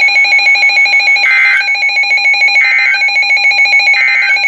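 A weather radio receiver's alert alarm beeping rapidly and steadily. Three short data bursts of EAS end-of-message tones sound over it, about 1.4 s apart, which signal the end of the alert.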